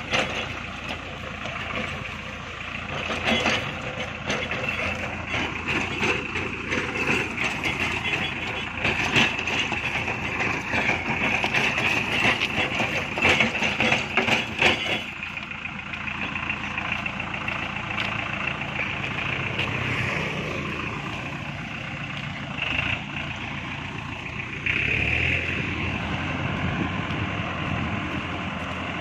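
Tractor diesel engine running steadily, driving a rear-mounted rotary cutter that chops roadside brush with dense crackling and ticking for the first half. The chopping eases off about halfway through, leaving the engine running on.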